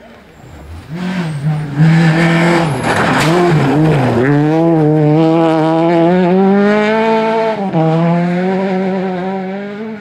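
Rally car engine at high revs passing on a gravel stage: it comes in about a second in, the revs wobble up and down for a couple of seconds, then hold steady and high before dipping sharply once late on and fading away as the car passes.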